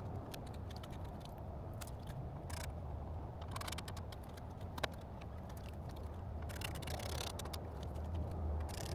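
Scattered clicks and short scrapes of hands fitting parts back onto a car's front end, with one sharp click about five seconds in and a longer scrape a couple of seconds later, over a low steady rumble.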